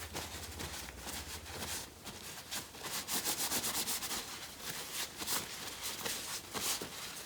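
Quick, irregular rubbing and scraping strokes from the coil-over's metal parts being handled and worked by hand.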